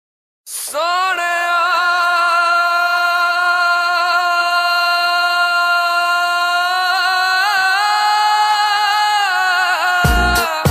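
A solo singing voice holds one long, slightly wavering note with no accompaniment, shifting pitch a couple of times, as the opening of a song. Near the end a heavy drum beat comes in.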